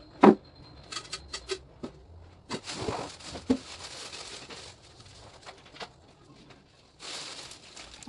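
Kitchen things being handled and put away on shelves: a sharp knock just after the start, a few light clicks, then a stretch of rustling with another knock. Near the end, cellophane wrapping crinkles close by as a wrapped gift basket is moved.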